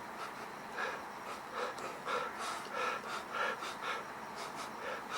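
A man sniffing hard and repeatedly at close range, a run of short sniffs about two a second, smelling a silicone nasal anti-snoring insert for any odour.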